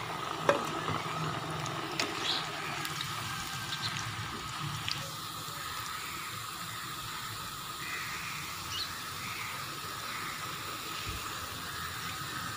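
Raw namak pare dough pieces deep-frying in hot ghee in a wok: a steady sizzling hiss of bubbling fat, with a few faint clicks in the first few seconds.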